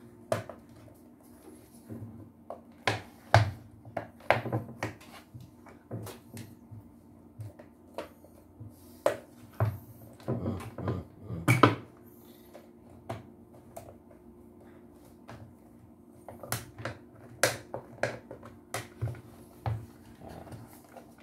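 Irregular clicks, knocks and rattles of the plastic housing of a handheld vacuum cleaner being handled, turned over and fitted together, with a faint steady hum underneath.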